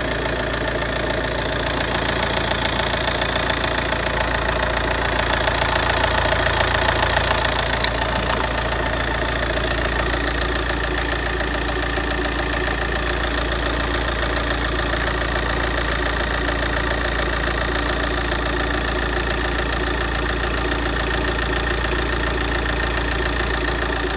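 Opel Vectra C's 1.9-litre Z19DTH four-cylinder turbodiesel idling steadily, a little louder about five to eight seconds in.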